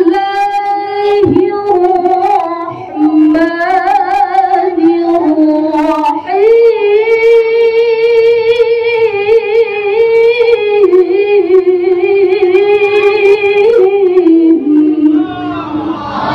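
A woman reciting the Qur'an in the melodic tilawah style. She draws out long notes with wavering, ornamented turns, and her last phrase is held for about nine seconds.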